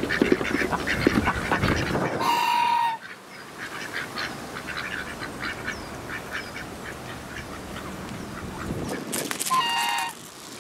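Ducks quacking and gabbling in a dense chorus for about two seconds, then a goose gives a loud, drawn-out honk. A quieter stretch with faint high chirps follows, and a second goose honk comes near the end.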